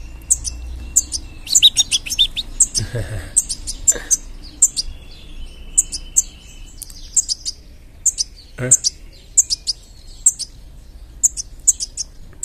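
A young European goldfinch (a fledgling) chirping over and over: short, high calls about twice a second, the begging calls of a hungry nestling.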